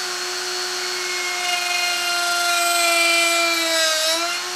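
Hercules quarter-inch electric die grinder, mounted as a tool post grinder on a lathe, running with a steady high whine. From about a second and a half in, its wheel grinds the point of a steel center punch, adding a louder grinding ring, and the motor's pitch sags briefly under the load near the end.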